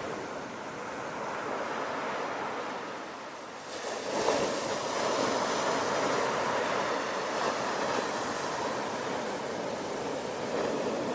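Sea waves washing on the shore; about four seconds in, a wave breaks and the rushing of surf grows louder.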